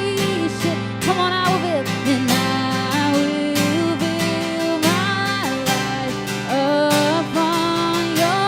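Worship band music with strummed acoustic guitar over a steady beat and a gliding melody line.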